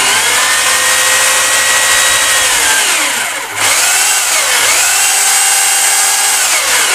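Tiger rotary hammer drill running with no bit, in plain rotation (normal) mode: a loud, steady motor whine. About three seconds in the trigger is eased and the whine sags, then picks straight back up. Two shorter dips in pitch come later.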